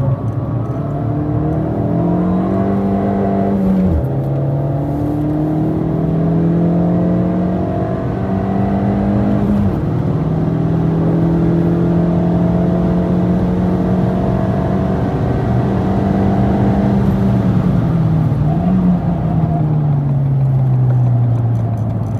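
Ford Fiesta ST Mk7's turbocharged 1.6-litre four-cylinder engine, resonator deleted, heard from inside the cabin under hard acceleration. Its pitch climbs and drops sharply at two upshifts, about 4 and 10 seconds in, holds steady, then falls as the throttle comes off, with a brief blip of revs on the way down. Tyre and wind noise run underneath.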